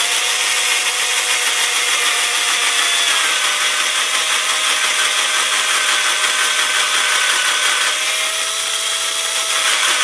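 Cordless drill-driver running steadily with a whine, its 2 mm bit boring through a plastic carp feeder's lead-weighted base. The pitch drops a little about three seconds in and wavers again near the end.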